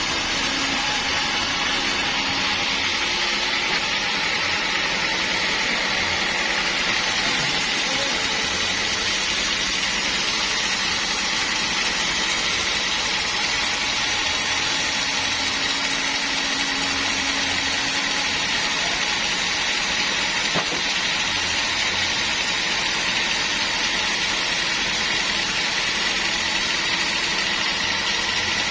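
Sawmill machinery running steadily: a constant mechanical noise with a steady high whine.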